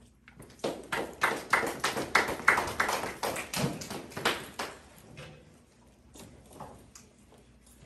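A small audience clapping briefly: a quick run of sharp claps that fades out about five seconds in, followed by a few faint taps.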